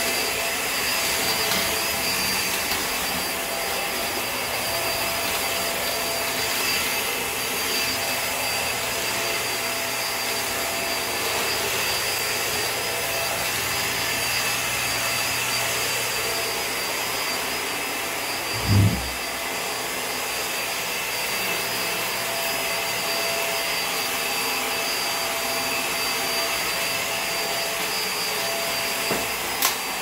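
Hoover React Powered Reach upright vacuum running steadily over a tile hard floor: an even rush of suction with fixed high tones over a low hum. A single short low thump comes about two-thirds of the way through.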